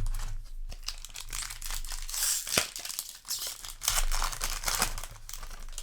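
Foil booster pack wrapper crinkling and rustling in the hands as the pack is handled and opened, with irregular sharp clicks from cards being handled.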